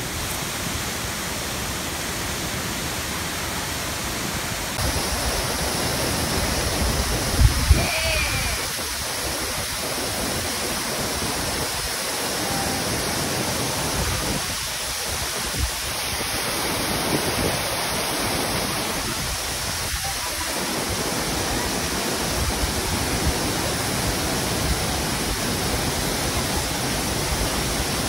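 A large waterfall heard from close to its base: a steady rush of falling water and spray, with a couple of brief low bumps about seven seconds in.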